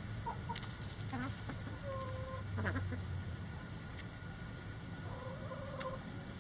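Backyard hens clucking softly, with several short, low, drawn-out calls and one falling squawk about two and a half seconds in, and a few sharp clicks as they peck at a hanging cabbage. A steady low rumble runs underneath.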